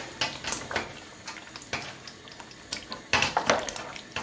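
A spoon stirring turkey wings through thick stew, knocking and scraping against the metal pot in a series of irregular clinks, busiest about three seconds in.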